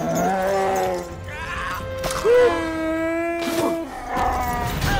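Film soundtrack of a brawl: Chewbacca's Wookiee growls and roars mixed with dramatic orchestral music, with a few sharp thuds of the fight.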